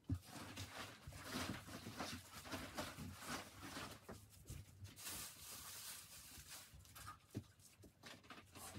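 Soft rustling, patting and light clicks of plastic-gloved hands scooping sushi rice and spreading it onto a nori sheet on a bamboo rolling mat, with a brief brighter rustle about five seconds in.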